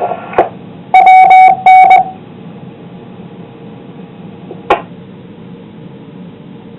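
Amateur radio repeater's courtesy beep heard through a receiver after a transmission ends: a loud, steady beep in two parts about a second in, then steady radio hiss broken by a single click.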